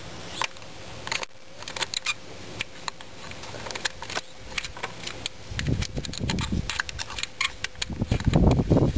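Hands working a hose back onto a washing machine's new drain pump. Scattered clicks and light clinks give way, from about halfway through, to heavier irregular bumping and rubbing.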